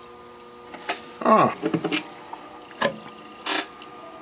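Quiet handling noises at a wall clock's brass movement: a brief scraping sound a little after a second in, a light click, then a short rustle.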